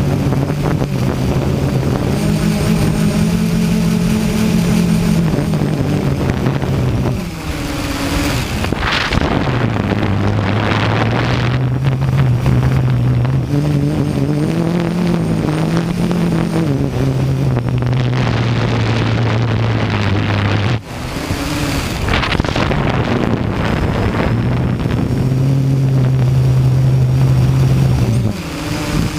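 Multirotor hexacopter's motors and propellers humming, the pitch falling and rising several times as the throttle changes, with gusty wind rushing over the microphone.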